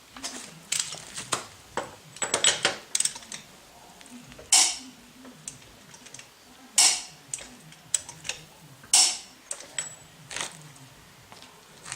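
Hand tools clicking and knocking at the axle nut during a rear wheel-bearing job. Scattered light clicks run throughout, with three louder sharp clacks about two seconds apart in the middle.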